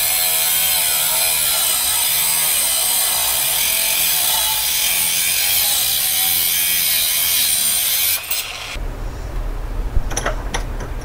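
Porter-Cable angle grinder with a cut-off wheel cutting down a metal mounting bracket clamped in a vise: a loud, steady high grinding hiss with the motor's pitch wavering under load. It stops abruptly about eight seconds in, leaving a low hum and a few light clicks.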